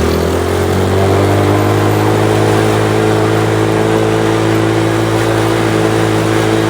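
ATV engine running under steady throttle while riding. Its pitch climbs a little in the first second, then holds level.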